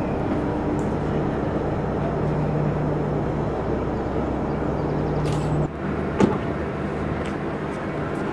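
Steady engine hum with a rushing noise, which cuts off abruptly about five and a half seconds in and gives way to a quieter outdoor background with one sharp click just after.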